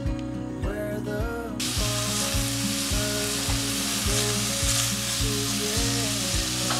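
Diced red onions sizzling in hot oil in an enamelled cast-iron pot as they are sautéed and stirred with a spatula. The sizzle starts abruptly about a second and a half in. Background music with a steady beat plays under it.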